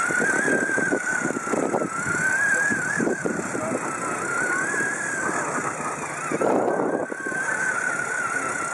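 High-pitched electric drive whine of a small four-wheeled robot rover running across grass, its pitch wavering up and down as it changes speed, with irregular rustles and thumps underneath.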